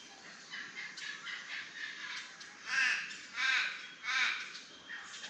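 A crow cawing three times in quick succession, each caw short and a little under a second after the last, over faint handling noise.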